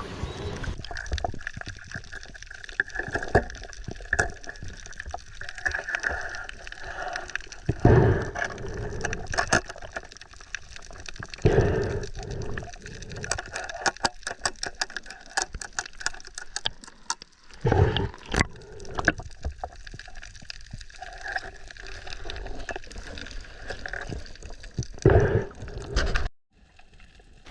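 Water sloshing and gurgling around a submerged camera while freediving, with many small clicks and ticks and a few louder whooshing surges of water movement.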